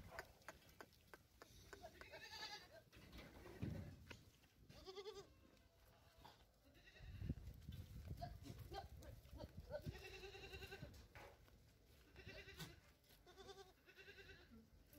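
Osmanabadi goats and kids bleating faintly several times, with quavering calls; the longest comes about ten seconds in.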